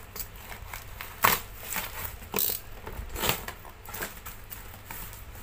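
Packing tape and cardboard being cut and torn open with a blade: irregular crackling and ripping rasps, the sharpest about a second in.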